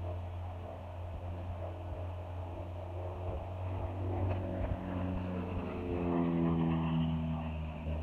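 A motor running nearby: a steady low hum with an engine note that grows louder from about halfway through and sinks slightly in pitch near the end.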